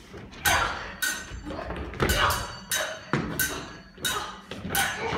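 Stage combat: a run of sharp knocks and thuds, about one to two a second, some with a brief ring, from the actors' steps and blows on the wooden stage.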